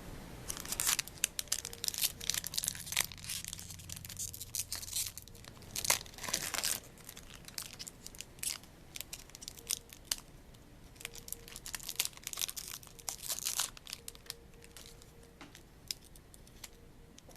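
A Magic: The Gathering booster pack's foil wrapper being torn open and crinkled, in bursts of crackling rustles that come and go.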